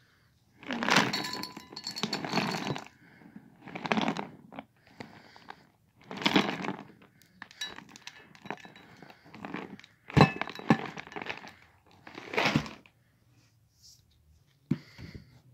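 Dry cereal rings pouring from a plastic cereal container into a bowl in about six bursts, rattling and clinking against the bowl, with a few sharp knocks.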